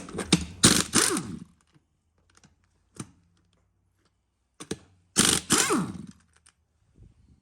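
Impact wrench hammering bolts loose in two bursts of about a second each, the motor whining down as each burst ends, with a few single clicks between.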